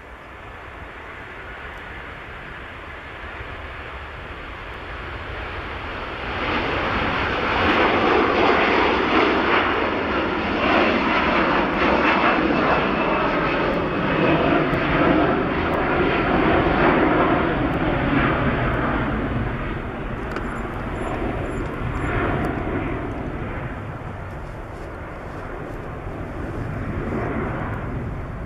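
Airbus A330-200 twin-engine jetliner at takeoff thrust as it lifts off and climbs away. The engine noise builds, jumps sharply about six seconds in, stays at its loudest for some twelve seconds, then slowly fades as the jet climbs out.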